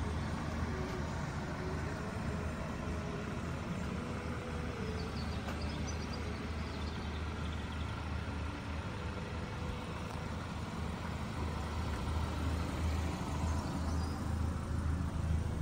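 Mini Cooper S's four-cylinder engine idling steadily, a low even hum.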